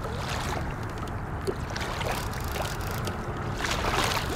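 Water lapping and splashing against the hull of a fishing kayak, with scattered small knocks and splashes over a low rumble.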